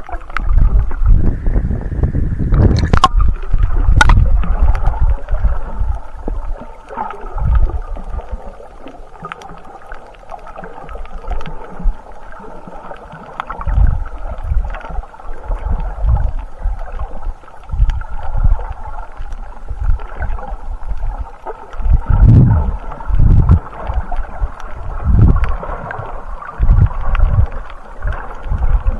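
Muffled underwater sound picked up by a snorkeller's camera held below the surface while swimming: irregular low rumbling surges of water moving around the camera over a steady hiss. Two sharp clicks about three and four seconds in.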